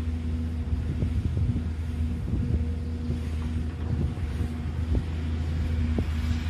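JCB tracked excavator's diesel engine running steadily with a steady tone over it as the arm lifts and swings a loaded bucket, with a few short knocks. Wind on the microphone.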